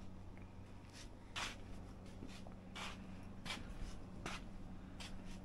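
Faint shuffling steps and brief rustles, about six of them, as a person moves with the camera around a garage, over a steady low hum.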